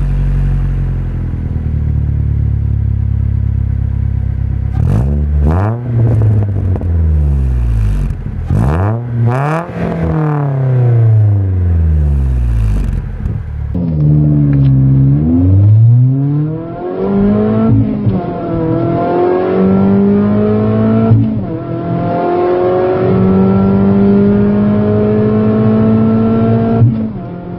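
Nissan Sentra SE-R's QR25DE 2.5-litre four-cylinder heard at the exhaust, idling and revved in a few blips that sweep up and fall back. About halfway through it is heard from inside the cabin under hard acceleration, its pitch climbing and dropping back at each of several upshifts.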